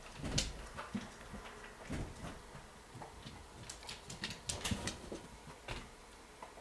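Irregular crunching and soft thumps of footsteps moving through deep snow, in scattered clusters.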